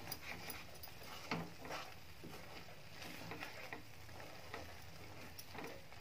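Wooden spatula stirring and scraping a thick masala paste in a nonstick kadai, in irregular faint strokes, over a faint sizzle of the paste frying in oil until the oil separates.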